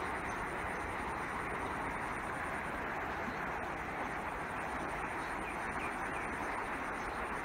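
A dense chorus of frogs calling together, heard as a continuous, unbroken din.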